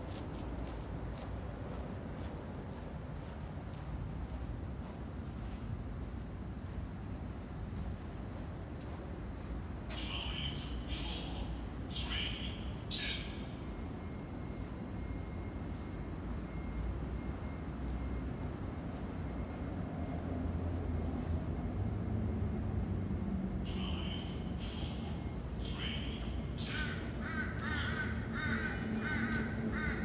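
A steady, high-pitched insect drone fills the background, with harsh bird calls in two bouts, one about ten seconds in and another some fourteen seconds later. A faint warbling pattern comes in near the end.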